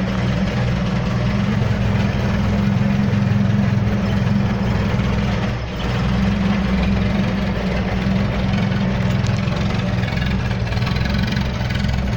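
1973 Mazda B1600 pickup's four-cylinder engine running steadily at idle, with a brief dip in level about halfway through.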